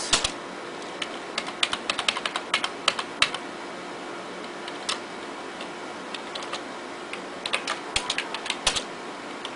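Computer keyboard keys being pressed to move through BIOS setup menus: quick runs of clicks in the first three seconds and again near the end, with a few single presses between.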